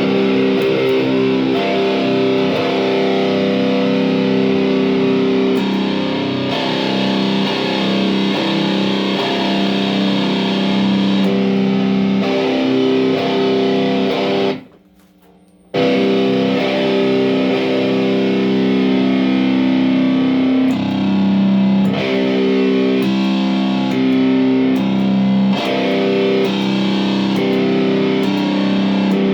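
Electric guitar played through a distortion pedal into a small Monoprice tube amp: distorted riffs and held chords. About halfway through the sound cuts out for about a second and comes back, as the A/B box switches between an amp with its original speaker and one fitted with a new Celestion speaker.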